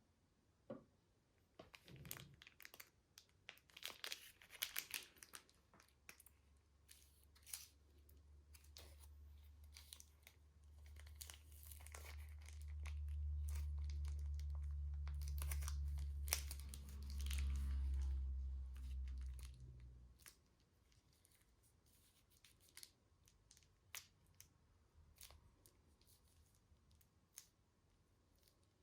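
Sticky slime being stretched and squished by hand, crackling and popping in many small sharp snaps. A steady low hum, the loudest thing here, comes in about a third of the way through and stops about two thirds in.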